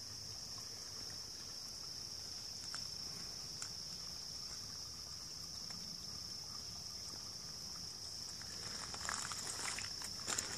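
Steady, high-pitched drone of insects calling in summer woods. Near the end, footsteps and rustling in dry leaf litter.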